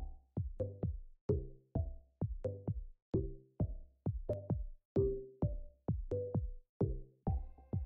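Electronic background music with a steady drum-machine beat, about two beats a second, over held low notes.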